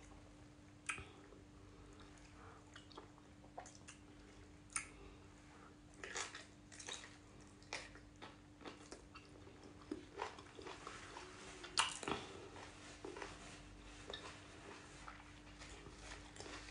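Close-miked eating sounds of pounded yam dipped in black soup and eaten by hand: soft, wet mouth smacks and clicks at irregular intervals, with a sharper smack about twelve seconds in. A faint steady hum runs underneath.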